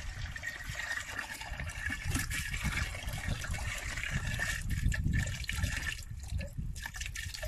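Water pouring from a large plastic bottle into a plastic bucket: a steady splashing stream that thins to separate splashes near the end.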